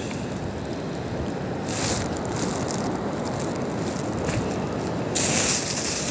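Wind rushing over the phone's microphone, a steady low rumble that turns louder and hissier about five seconds in.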